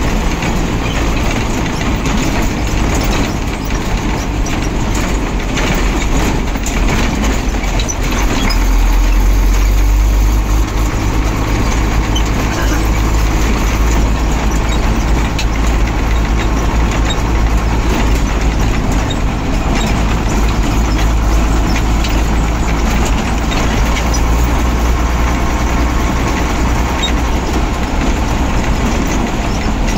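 Ashok Leyland Comet 1611 truck's diesel engine running under way, heard from inside the cab with road noise. It is a steady low rumble that grows louder about eight seconds in.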